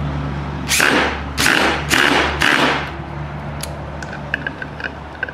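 Cordless drill driving a screw right through 3/4-inch plywood: the motor runs, then four short harsh bursts in the first three seconds as the screw is pushed through, followed by a few light clicks.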